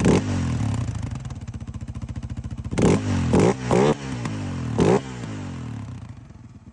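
Yamaha Raptor 700R quad's single-cylinder engine idling, blipped sharply on the throttle five times: once at the start and four times between about 3 and 5 s in. It settles to a quieter idle near the end.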